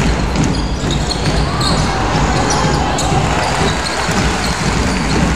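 Live basketball game sound in an arena: steady crowd noise and voices, with a ball being dribbled on the hardwood court.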